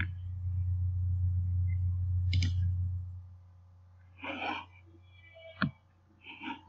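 Low steady electrical hum through the recording microphone for about the first three seconds, then dropping away. A short breathy noise comes about four seconds in, and a single sharp click follows near the end.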